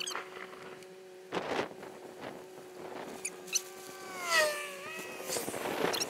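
The first large raindrops of a thunderstorm hitting glass, heard as scattered knocks and gusty noise over a steady hum. Short high chirps come throughout, and a drawn-out squeal falls and then rises just past the middle.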